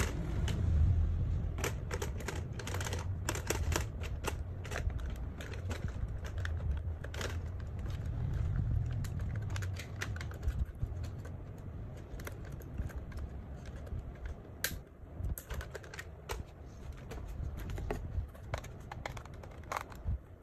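Irregular plastic clicks and taps as hands handle a WPL C64-1 RC crawler truck's plastic body and parts, over a low rumble of handling noise. Near the end, a small screwdriver works at a screw on the truck's pistol-grip transmitter.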